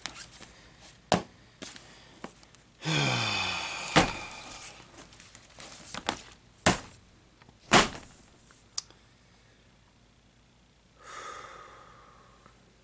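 Vinyl records in their sleeves knocking and thudding as they are picked up and set down, about seven sharp knocks in the first nine seconds. A long sigh falling in pitch about three seconds in.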